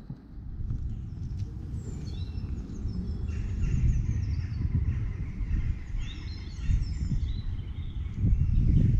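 Low rumble of wind on the microphone, with songbirds chirping and singing from about two seconds in.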